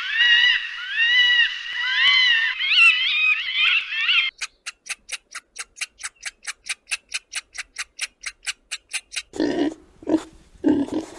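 Animal calls in three parts. First comes a dense chorus of high, rising-and-falling chirping calls for about four seconds. Then a rapid run of sharp clicks follows, about five a second. A few short, low grunts come near the end.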